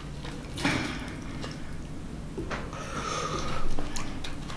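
A man eating: breathy sniffs through the nose and faint scrapes and taps of a wooden fork on a plate.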